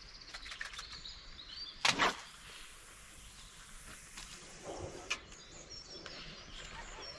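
Small birds chirping in the background at a lakeside, with a brief loud rustle about two seconds in and a sharp click a few seconds later.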